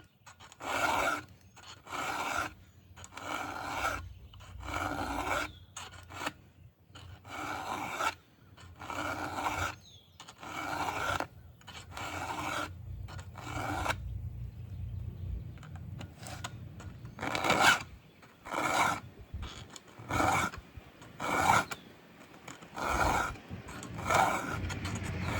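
Round file rasping across the cutters of a Stihl MS 500i chainsaw chain in hand sharpening, one stroke about every second, with a pause of a few seconds midway. A low rumble builds in the background through the second half.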